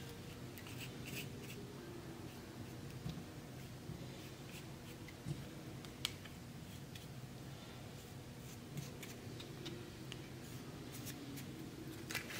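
Paintbrush bristles stroking paint onto a cardboard egg-carton cup: faint scratchy strokes with a few small clicks from handling the carton, over a low steady room hum.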